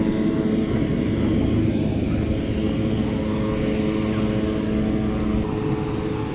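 Propeller aircraft engine running at a steady pitch, a continuous drone with no rise or fall.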